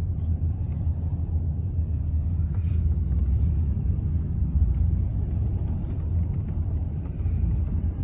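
Steady low rumble of a car's engine and tyres on the road, heard from inside the cabin of the moving car.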